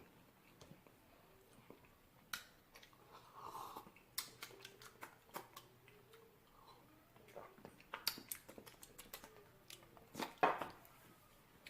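Quiet room with scattered small clicks and rustling handling noises, the loudest a short cluster of knocks about ten seconds in.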